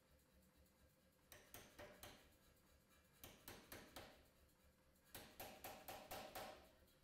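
Anyang pneumatic power hammer striking hot steel in three short bursts of rapid blows, about five a second, with brief pauses between the bursts.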